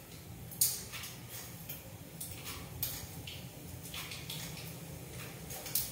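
Mustard seeds spluttering in hot coconut oil in a small pan: irregular sharp pops and crackles, a few a second, as dal is dropped in for tempering.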